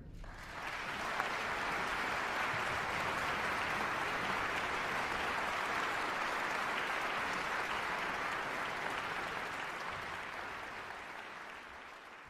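Audience applause that swells in over the first second, holds steady, then fades out gradually over the last few seconds.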